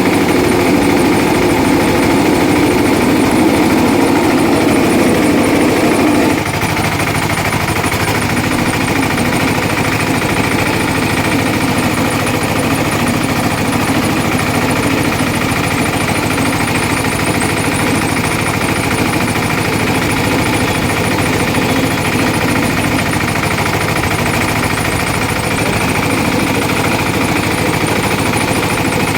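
Motorised sugarcane juice crusher running steadily with a mechanical rattle; its sound drops a little about six seconds in.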